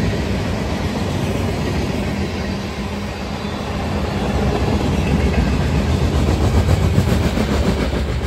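Freight train's hopper and tank cars rolling past, steel wheels clicking over the rail joints.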